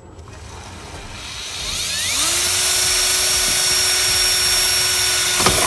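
Cordless drill speeding up with a rising whine, then running at a steady speed as its long bit bores through the cab's interior trim panel, stopping suddenly near the end.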